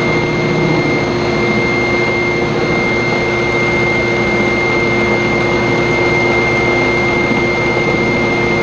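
Shop vacuum running steadily, its hose held at the cutting area of a small metal lathe. It makes a constant rushing noise with a steady high whine over it.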